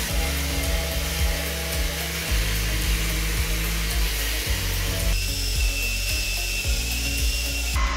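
Random orbital sander sanding Douglas fir, a steady hiss over background music with a bass beat. About five seconds in it cuts to the steady whine of a drill spinning an abrasive disc against the wood.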